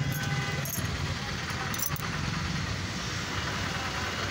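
Roadside traffic noise, with a vehicle engine running steadily close by and a couple of light clicks in the first two seconds.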